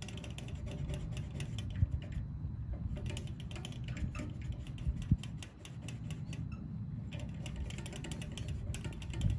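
Cloth scrubbing the glass viewing window of a small steel tent wood stove: a fast run of rubbing and scratchy strokes, with two knocks against the stove's metal body about two and five seconds in.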